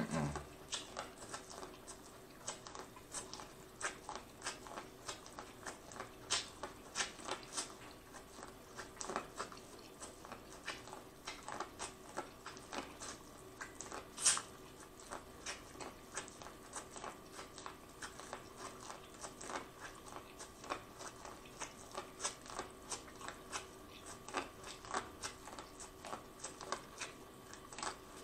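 Biting and chewing corn on the cob: a steady run of small, irregular crunches and wet mouth clicks as kernels are bitten off the cob, with one sharper crunch about fourteen seconds in.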